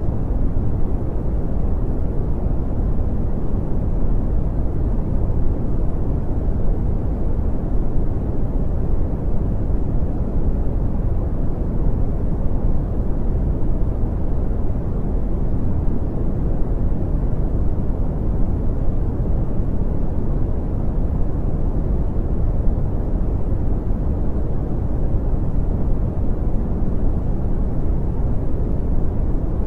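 Steady brown noise: an even, deep rushing hiss with most of its weight in the bass, no tones or changes.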